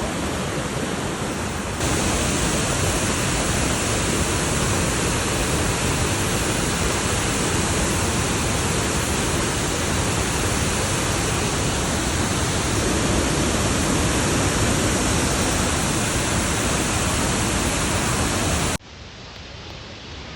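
Steady rushing roar of the Kravica Waterfalls' cascades heard close up. It steps up louder about two seconds in and drops suddenly to a quieter rush near the end.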